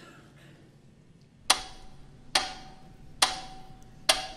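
Slow, even ticking like a clock or wood block. There are four sharp ticks a little under one second apart, starting about a second and a half in, each with a short pitched ring.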